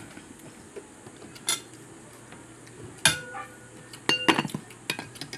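Cutlery clinking against a plate while eating: one light tap, a louder ringing clink about three seconds in, then a quick cluster of clinks near the end.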